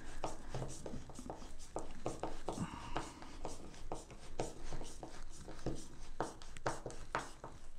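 A hand screwdriver driving a screw into a towel bar's mounting bracket, into a stripped drywall hole packed with paper: irregular clicks and scraping, several a second, as the bit turns in the screw head and the screw bites.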